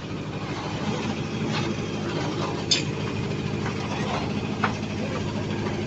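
An engine running steadily at idle, with a sharp click or knock twice.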